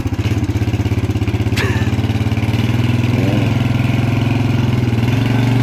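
Quad bike (ATV) engine running at low revs with an even, pulsing chug. It gets a little louder in the second half as the quad climbs a single ramp onto a trailer under load.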